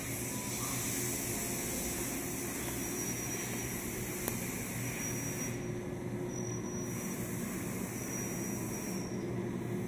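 Steady hum and whir of running machine-shop equipment and cooling fans, with a low hum under a hiss. A single faint click comes about four seconds in.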